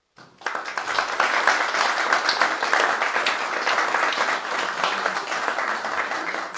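A small seated audience applauding, the clapping starting suddenly and holding steady before easing slightly near the end.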